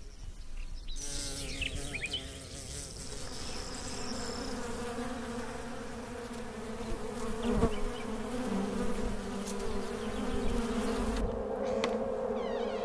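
Honeybees buzzing: a steady hum of many bees that sets in about a second in.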